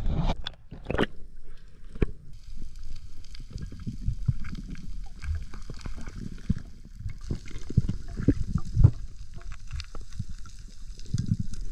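Water sloshing and gurgling around a diver's camera at and below the sea surface, with many irregular dull low thumps and knocks.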